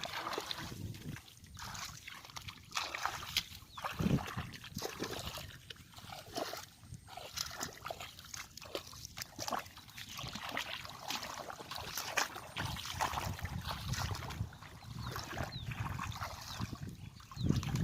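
Shallow water sloshing and splashing in small, irregular bursts.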